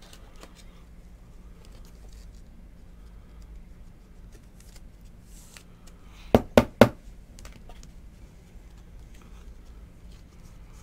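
Hands handling a stack of trading cards: soft sliding and rustling of the cards, with three sharp taps in quick succession a little past six seconds in.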